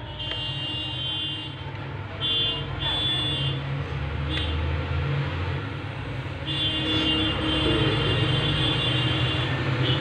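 Road traffic: a steady low rumble with several stretches of high-pitched tones, the longest from about six and a half to nine and a half seconds in.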